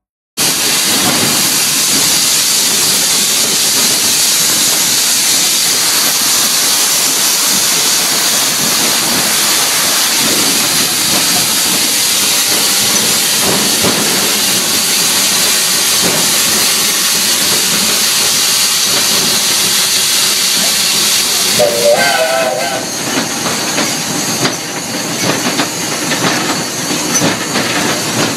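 Steam hissing loudly and steadily in the cab of a steam switcher locomotive. About 22 seconds in, it drops to a somewhat quieter, more uneven hiss with a faint regular beat, after a brief wavering tone.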